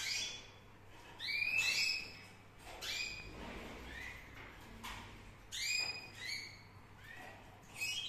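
Red factor canary chicks, about 16 days old, giving short cheeping calls, about nine in an irregular series, each note rising then falling.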